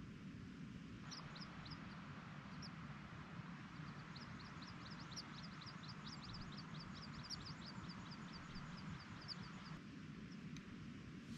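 A small bird singing faintly: a fast trill of short high chirps, about five a second, from about four seconds in until shortly before the end, over a low steady rumble and a soft hiss.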